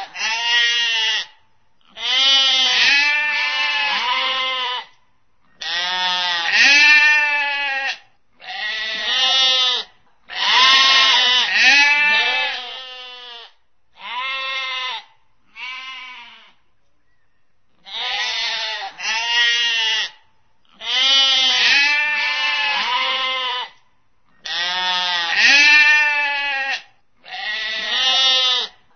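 Sheep and lambs bleating: a run of about eleven quavering bleats, each one to three seconds long, with short pauses between them.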